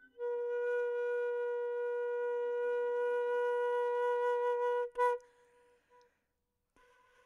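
Flute holding one long, steady note for nearly five seconds, ending in a short sharp accent; a faint short note follows about a second later.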